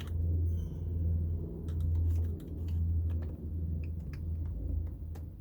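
A low, steady hum that swells and dips every second or so, with scattered light clicks and ticks from hand work on door trim and clips.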